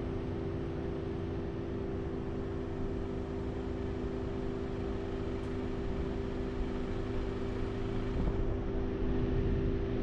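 A vehicle running: a steady low rumble with a constant hum.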